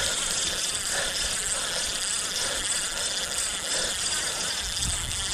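Spinning reel's drag buzzing steadily as a hooked striped bass pulls line off against the loosened drag.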